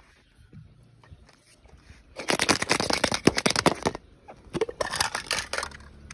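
Hollow plastic surprise eggs clattering and clicking as one is handled and pulled apart, in two bursts of rapid clicks, the first starting about two seconds in.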